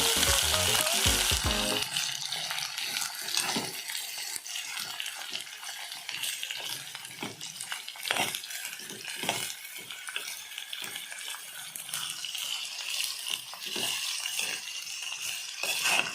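Chopped vegetables sizzling in hot oil in a pan while being stirred, with a steady frying hiss and many short scrapes and knocks of the spatula against the pan.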